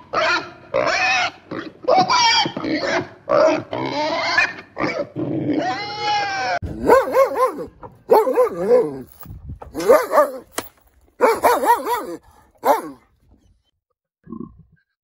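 A pig making a quick run of short, pitched calls. About halfway through, a Boston terrier takes over with a series of short whines, each rising and falling in pitch, which stop a couple of seconds before the end.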